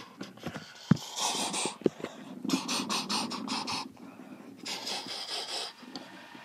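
Breathy puffs and hisses close to the microphone, several in a row, with two sharp knocks about one and two seconds in.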